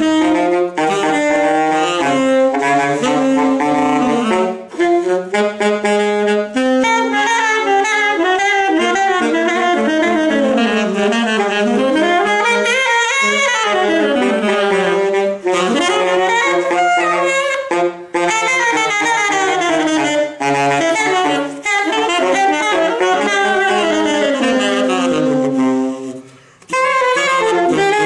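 Saxophone duet on alto and tenor saxophone playing a jazz piece: one horn holds long low notes while the other plays fast runs that sweep up and down the range. The playing breaks off briefly near the end, then both come back in.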